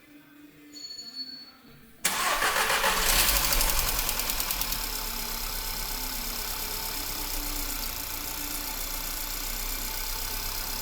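Skoda Fabia 1.2 TSI four-cylinder petrol engine starting about two seconds in, running up briefly and then settling into a steady idle: its first start after a timing chain replacement.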